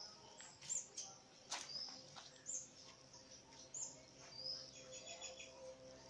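Small birds chirping: short, high call notes repeated roughly once a second.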